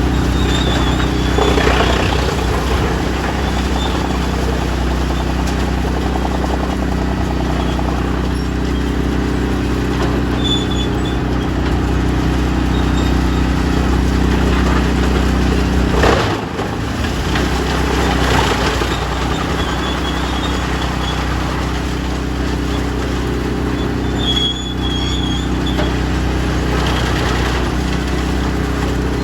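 Large diesel engine of heavy farm machinery running steadily, with a brief break in the sound about halfway through.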